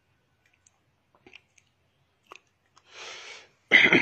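A man's small mouth clicks and lip smacks, then a soft breath about three seconds in and a sudden, louder breath just before the end.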